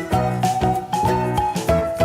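Upbeat background music with a steady beat and a bright melody.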